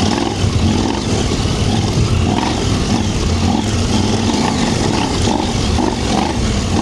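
Big adventure motorcycle's engine running under throttle as the bike rides and climbs a dirt trail, its pitch and level rising and falling with the throttle, with wind and riding noise on the helmet microphone.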